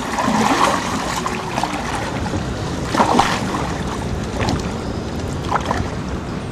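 Small river ferry boat (perahu tambang) under way: a steady rush of water along the hull, with wind on the microphone and several splashes or knocks, the loudest about three seconds in.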